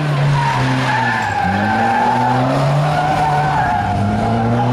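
Small car's engine revving hard, its pitch rising twice, with tyres squealing as the car slides round a roundabout.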